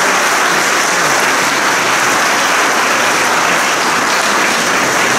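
Congregation applauding, a dense, steady round of hand clapping.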